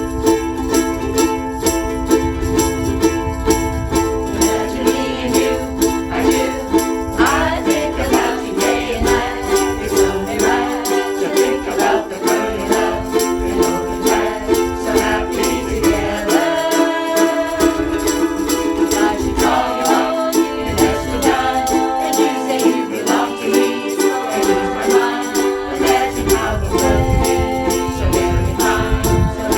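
A group of ukuleles strumming a song together in a steady rhythm, with jingling percussion keeping time. A group of voices starts singing along about seven seconds in.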